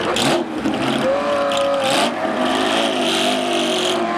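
Classic race-car engines at a hillclimb start line: a classic Porsche 911's air-cooled flat-six accelerating hard away from the line, with a sports-racing prototype's engine running close by. The engine pitch climbs about a second in, with a short break near two seconds like a gear change.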